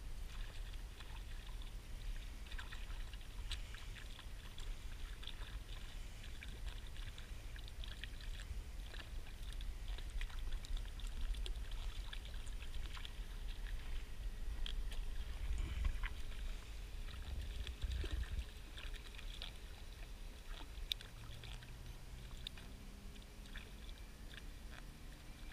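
A hooked fish thrashing at the surface beside a kayak: water splashing and sloshing, with many scattered light crackles and clicks over a steady low rumble.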